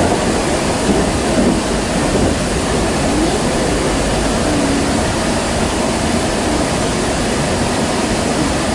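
Steady running noise of the Kintetsu 20000-series 'Raku' train heard from inside the passenger car: an even rush of wheels on rail and air at speed, with no breaks.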